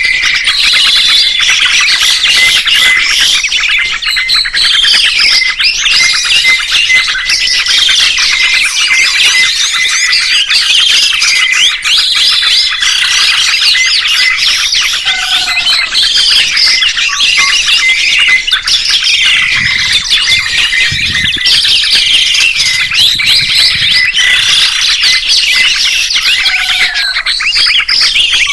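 Many songbirds chirping and whistling at once, a dense, unbroken tangle of quick notes sliding up and down in pitch.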